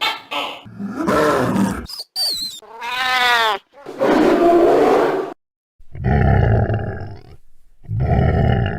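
A string of short synthesized sound effects, one after another with brief gaps: harsh growls, a warbling sweep that wobbles up and down in pitch, and deep roar-like blasts.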